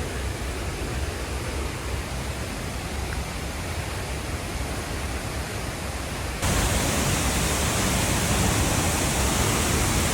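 Steady rushing of a rainforest waterfall. About six seconds in it abruptly becomes louder and brighter.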